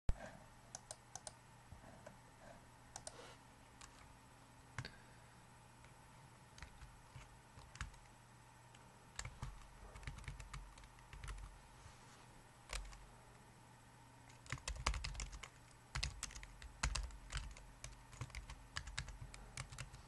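Typing on an R-Go Split Keyboard: a few scattered key clicks at first, then rapid runs of keystrokes from about halfway through, densest near the end.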